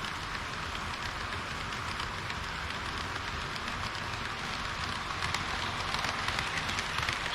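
HO-scale model train rolling along the track: a steady rattling rush of metal wheels on the rails, full of fine clicks, growing a little louder about five seconds in.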